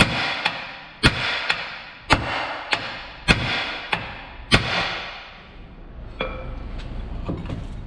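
Hammer blows on the steel spindle of a Ford Explorer Sport Trac to break the lower ball joint's taper loose. There are five hard ringing strikes about a second apart, with a lighter hit between each pair, and the hammering stops about five seconds in.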